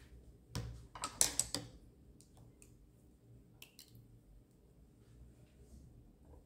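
Painting tools handled on the table: a quick run of sharp clicks and light taps about half a second to a second and a half in, then a few single ticks.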